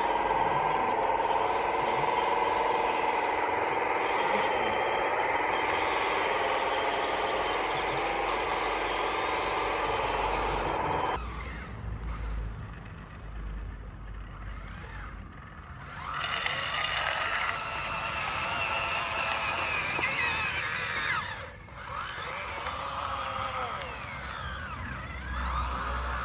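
Electric motors and hydraulic pump of radio-controlled construction models whining. A steady whine cuts off abruptly about eleven seconds in; after a quieter stretch, whines rise and fall in pitch as the machines move and work.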